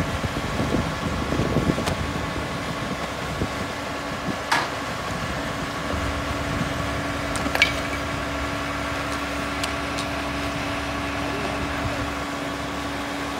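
Fire engine's engine running steadily, a constant drone carrying several steady tones, with two sharp clicks, one about four and a half seconds in and one about seven and a half seconds in.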